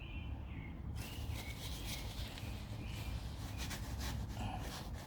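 Steady low rumble with a few short bird chirps near the start and irregular rustling from about a second in.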